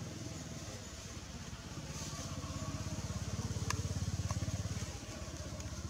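Low, evenly pulsing rumble of a small engine running, swelling about two seconds in and easing off near the end, with a couple of faint clicks.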